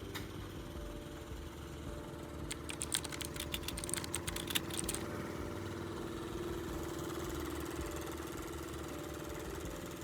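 Machinery running with a steady hum. A quick run of sharp clicks or rattles comes about two and a half seconds in and lasts a couple of seconds.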